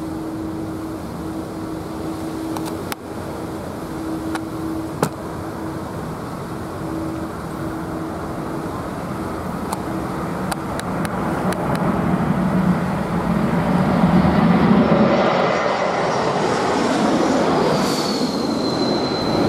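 Twin-engine jet airliner on final approach passing low overhead: its engine noise builds steadily to a peak, and a high whine drops in pitch near the end as it goes over.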